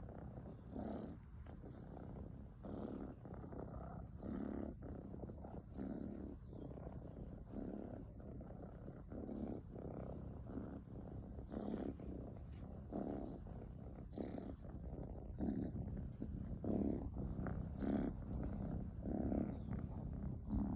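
Domestic cat purring: a steady low rumble that swells about once a second with each breath.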